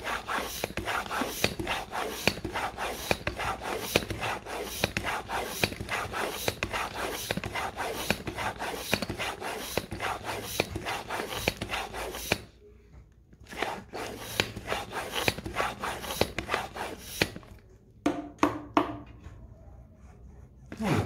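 Bicycle pump inflating a tubeless mountain-bike tyre through its valve: a quick run of rasping pump strokes. The strokes stop briefly a little past halfway, resume, and end with a few last strokes near the end.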